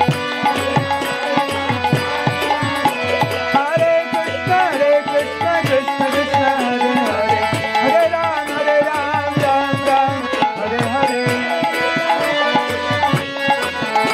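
Kirtan music: a Jubilate harmonium sounding sustained chords under a steady rhythm of hand-drum strokes. A singing voice glides through a melody over it from about four to eight seconds in.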